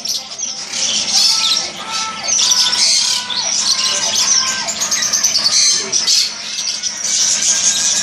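Many caged parrots and small birds chirping and squawking together, a dense unbroken chatter with sharp high calls over it.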